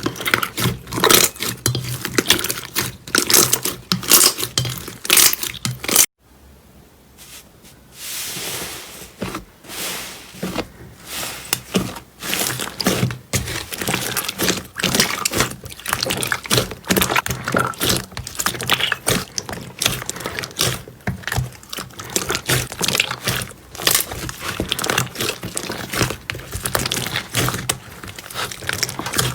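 Slime being squeezed and poked by hand, giving dense crackling and popping. The sound cuts off suddenly about six seconds in, and after a short quiet moment the crackling starts again.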